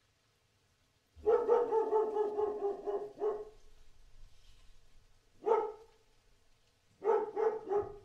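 A dog barking: after a second of quiet, a fast run of barks for about two seconds, a single bark near the middle, and a quick burst of about four barks near the end.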